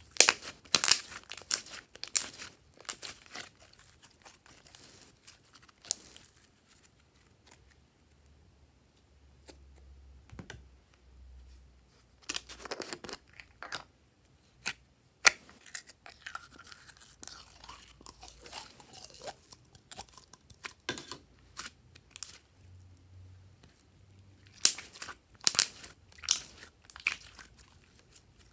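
Glossy slime squeezed, stretched and poked by hand, giving sticky crackles and sharp clicking pops in clusters, busiest in the first few seconds, in the middle and again near the end, with quieter stretches between.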